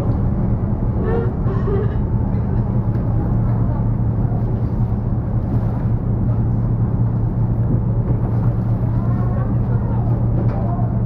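Steady low hum of a passenger motor ship's diesel engine running under way, with an even hiss of wash and wind over it.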